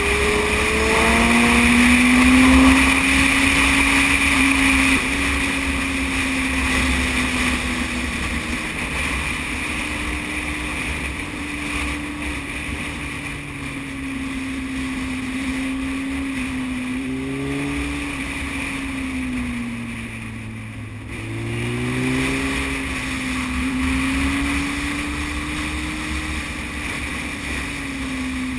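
Yamaha YZF600R Thundercat's inline-four engine running under way, its pitch climbing as it accelerates in the first couple of seconds, then easing off and picking up again about two-thirds of the way through. A steady low wind rumble lies under it.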